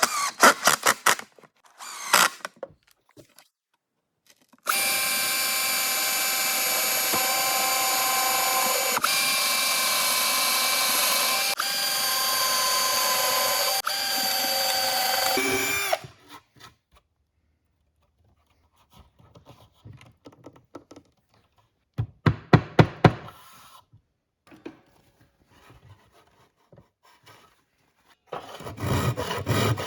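Electric power drill running in one long steady stretch of about eleven seconds, its motor pitch stepping a few times, with short bursts of the drill before it. A few sharp knocks follow later, and a scraping, sawing-like rub begins near the end.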